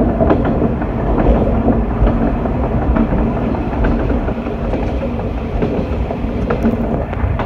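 Diesel railcar running along the track, a steady rumble of engine and wheels with scattered clicks of the wheels over rail joints.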